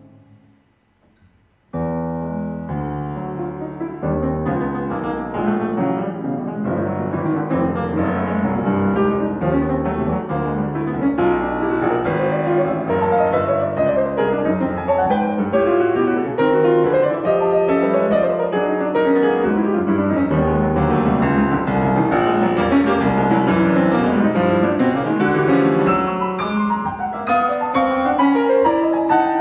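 The last held notes of clarinet, viola and piano fade out and break off. After a short pause a solo piano comes in, about two seconds in, and plays loud, dense, atonal chords and runs.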